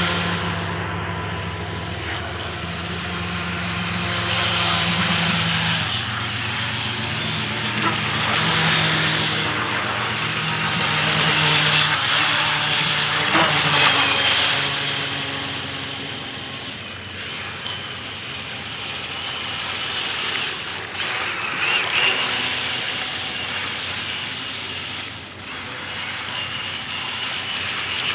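RC jetboat's brushless electric motor (a D3542 1450 kV) running hard, its whine rising and falling as the throttle is worked through fast runs and turns, with the hiss of water spray from the jet.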